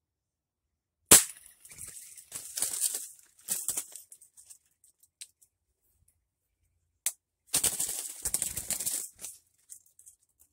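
Two rifle shots about six seconds apart; the first is sharp and the loudest. Each is followed by a second or two of fluttering and rustling in the branches.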